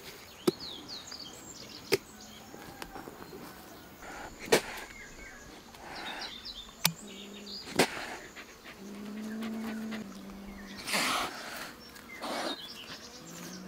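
Small birds chirping in short bursts, with several sharp clicks or knocks spread through and a low hum that comes and goes. A brief noisy rush comes about eleven seconds in.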